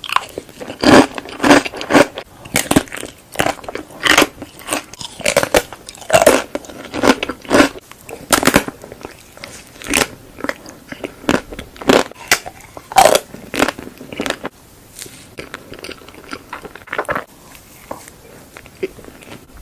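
Crunchy food being bitten and chewed close to the microphone: a quick run of sharp, crackling crunches, softer and sparser after about 14 seconds.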